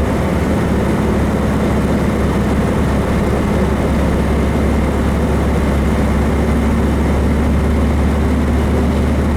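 1776 cc air-cooled VW flat-four engine in a 1966 Beetle running steadily while the car is driven, heard from inside the cabin as an even low drone.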